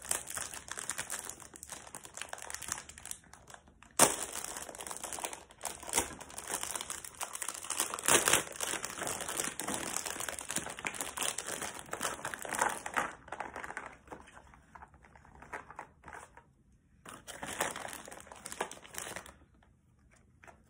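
Thin clear plastic packaging crinkling and rustling as it is handled and pulled apart, with a sharp click about four seconds in. The crinkling eases off and stops shortly before the end.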